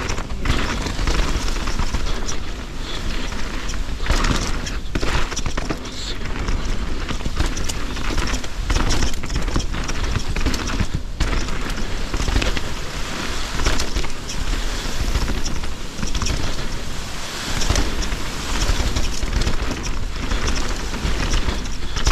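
170 mm-travel enduro mountain bike descending rough, rocky singletrack: tyres rolling over dirt and rock with a constant clatter of knocks and rattles from the bike. Steady wind rumble on the bike-mounted camera runs underneath.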